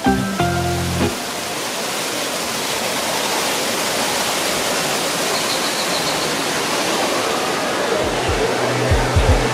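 Steady rush of falling water, an even hiss across the whole range. A few musical notes die away about a second in, and low pulsing bass notes of music come in near the end.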